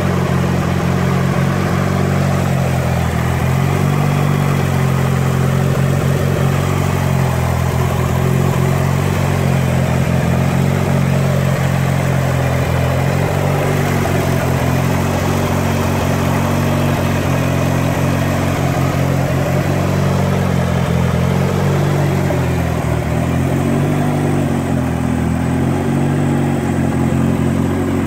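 Mitsubishi Lancer Evolution 6.5 Tommi Mäkinen Edition's turbocharged four-cylinder engine running steadily. Its pitch dips and rises slightly a few seconds in and again about three quarters of the way through.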